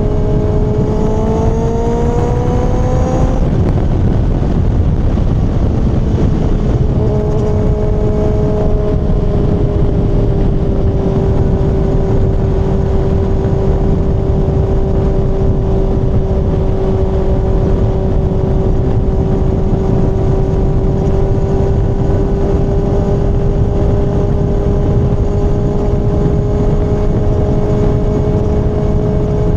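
Kawasaki ZX-6R inline-four engine heard from the rider's seat. The revs climb for about three seconds and drop off, then the engine holds a steady cruising pitch, under heavy wind rumble.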